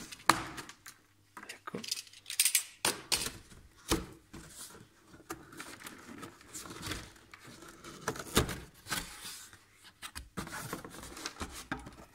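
Utility knife slitting packing tape on a cardboard box, then the cardboard flaps being pulled open and handled, with irregular scrapes, rustles and clicks.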